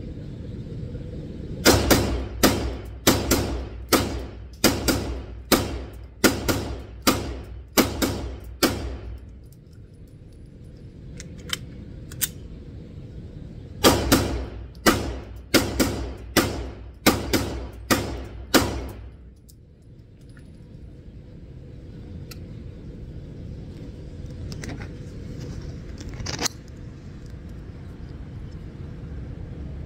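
Smith & Wesson M&P 2.0 9mm pistol fired in rapid strings at an indoor range, shots roughly half a second apart, each ringing briefly. A long run starts about two seconds in, there is a pause of about five seconds, then a second run of about ten shots. A few fainter shots follow over a steady low hum.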